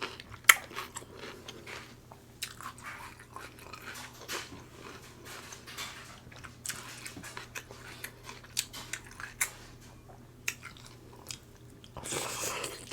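Close-miked eating: a person chewing and smacking on seafood-boil food, with many sharp clicks and cracks, the loudest about half a second in, and a longer wet smacking stretch near the end.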